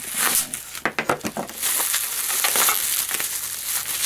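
Clear plastic wrapping crinkling and crackling as it is pulled off a coin capsule by hand, a busy run of small crackles.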